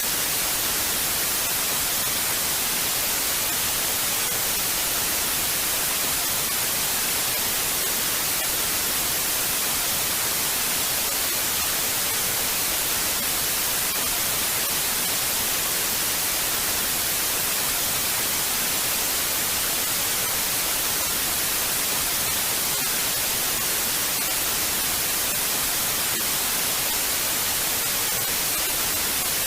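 Television static: a steady, unbroken hiss of white noise, strongest in the high frequencies, without pauses or changes.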